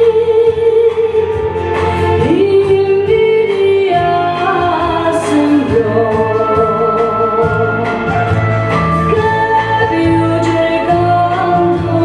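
A woman singing live over band accompaniment, holding long notes with vibrato.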